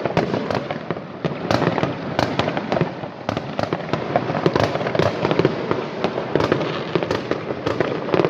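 Many fireworks going off at once: a dense, continuous barrage of overlapping bangs and crackling pops with no let-up.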